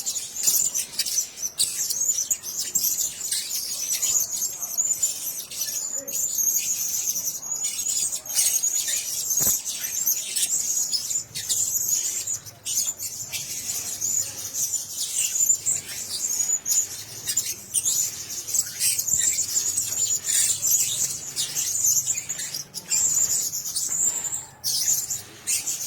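Blue-crowned hanging parrots chirping: a dense, continuous stream of thin, high-pitched twitters with many short clicks mixed in.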